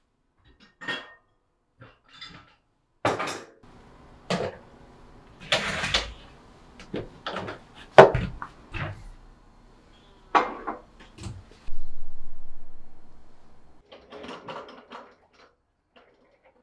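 Kitchen handling sounds: scattered clicks and knocks of dishes and cabinet fittings. A sharp latch click about eight seconds in comes as the dishwasher door is pulled open, and a longer sound follows a few seconds later, fading out over about two seconds.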